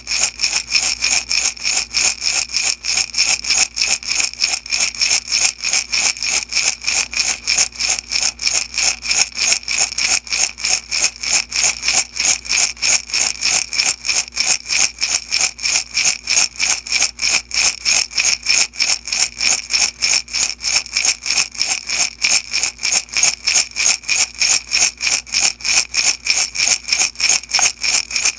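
Small beads shaken back and forth in a glass jar, rattling against the glass in a fast, even, unbroken rhythm.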